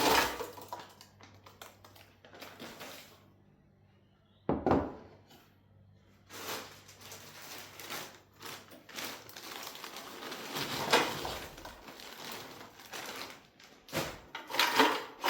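Kitchen handling noises while frozen chips are seasoned in an air fryer basket: a run of rustling and rattling with several sharp knocks, the loudest about five seconds and eleven seconds in.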